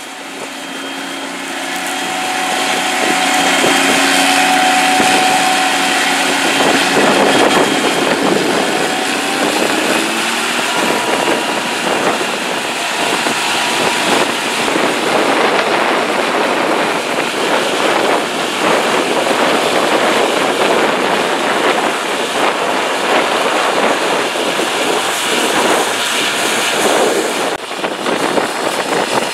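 John Deere W650 combine harvester running under load while cutting wheat: a loud, continuous drone of engine and threshing machinery. It grows louder over the first few seconds, with a steady whine in it for the first several seconds before it settles into an even roar.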